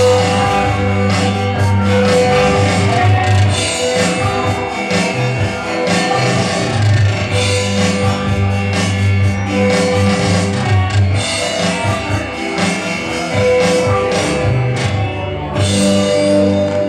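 Live rock band playing, with electric guitar, bass, drums and keyboard, in a loud recording of poor sound quality.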